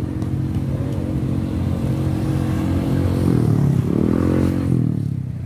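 Motor vehicle engines running steadily close by, and about three seconds in one engine revs up and then eases off as it passes.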